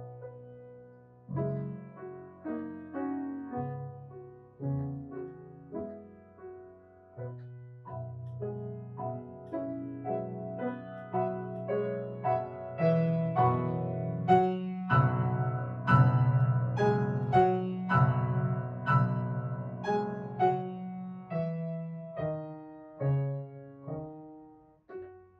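Grand piano played solo, notes struck and left ringing; the playing grows louder toward the middle and softens near the end.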